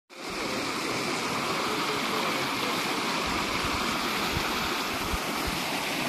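Shallow stream rushing and splashing over rocks in small rapids, a steady even rush of water.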